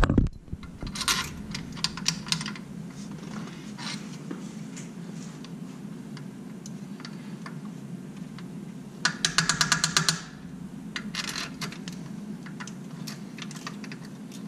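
Hand ratchet clicking as subframe bolts are run in loosely, in short runs of quick clicks: a few about a second in and a faster, louder run at about nine seconds, over a steady low hum.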